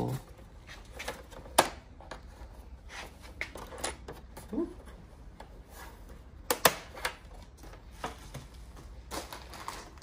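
Plastic snap clips on the back cover of a Dell OptiPlex 9030 all-in-one clicking loose as the cover is pried off its frame: sharp clicks, the loudest about a second and a half in and two close together near seven seconds, with softer scraping and handling of the plastic between them.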